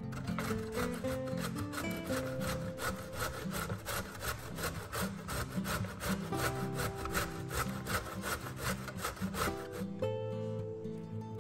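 Zucchini being grated on a stainless steel box grater: quick, even rasping strokes that stop near the end, with soft guitar music underneath.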